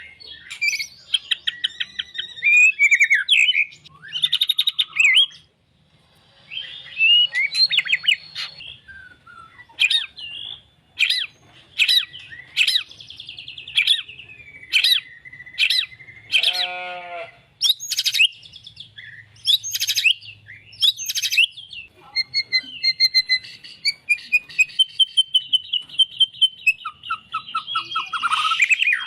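White-rumped shama (murai batu) singing a long, varied song: whistled phrases, a series of sharp clicking notes, a brief harsh buzzing note just past the middle, and a fast run of rapidly repeated notes near the end.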